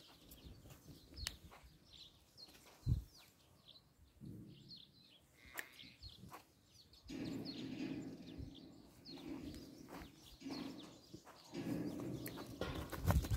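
Damara sheep in a pen, calling low and quietly from about halfway through, with small birds chirping now and then and a single dull knock about three seconds in.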